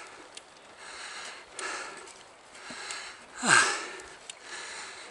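A cyclist's heavy, rhythmic breathing while pedalling up a steep climb, about one breath a second, with one louder breath out about three and a half seconds in that drops in pitch.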